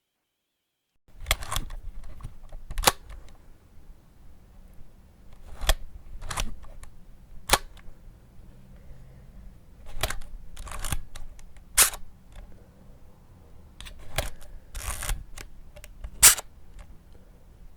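Camera shutter clicks: about a dozen separate shutter releases at uneven intervals, some single and some in quick double clicks, over a low background hum. The loudest click comes near the end.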